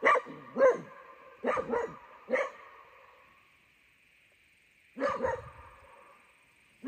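A dog barking: a run of short barks, a pause of about two seconds, then a couple more barks.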